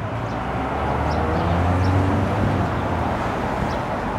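A motor vehicle driving past, its low engine rumble swelling to a peak about two seconds in and then slowly fading.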